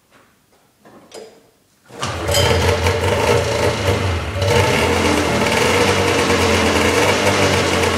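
A 2001 Polaris snowmobile's two-stroke engine cold-starting: a few faint clicks, then it catches about two seconds in and runs loud and steady.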